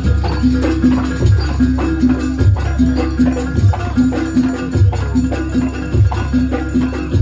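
Javanese jaranan gamelan music played live: a short melodic figure repeats over and over, with a low beat about once a second.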